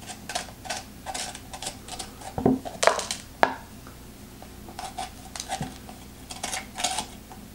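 Irregular crisp clicks, scrapes and knocks of a cored green pepper being handled over a plastic tub, its seeds scraped and shaken out. The loudest knocks come about two and a half to three and a half seconds in.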